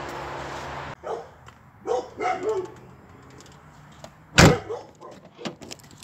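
A dog gives a few short barks, then a single loud car-door thump about four seconds in. A steady rustling noise fills the first second and stops suddenly.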